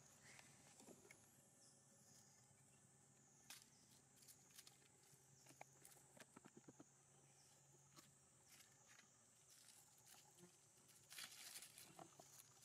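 Near silence, broken by faint scattered clicks and rustles of dry leaf litter as macaques shift and step about on it, with a slightly louder rustle near the end.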